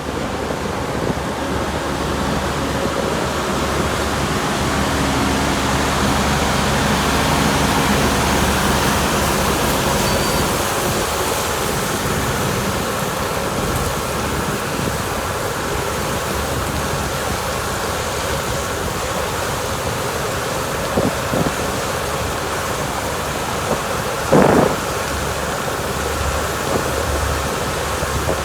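Heavy road-paving machinery running steadily, a loud even din with a low engine hum underneath. A short sharp knock about three-quarters of the way through.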